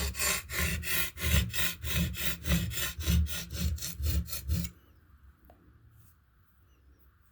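A steel knife blade rubbed rapidly back and forth on a limestone sharpening stone, in quick, even rasping strokes, slowly cutting metal. The strokes stop abruptly about two-thirds of the way through.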